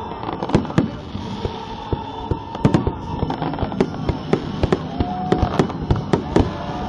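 A fireworks display: shells and crackers bursting in a rapid, irregular barrage of sharp bangs, growing denser towards the end, recorded on a phone's microphone.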